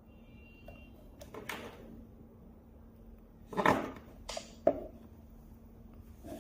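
Several short knocks and scrapes of objects being handled, the loudest about three and a half seconds in, over a faint steady hum; a faint high electronic tone sounds briefly at the start.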